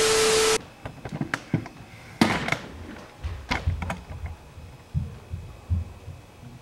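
TV static hiss with a steady test-pattern tone that cuts off suddenly about half a second in, followed by scattered knocks, taps and low thumps of a camera being handled and set in place.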